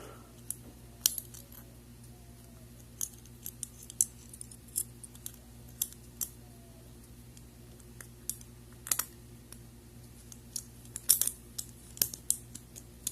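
Handcuffs being clicked down tighter on a wrist: irregular small metallic clicks from the cuff's ratchet and chain, a few louder ones near the end, over a faint steady hum.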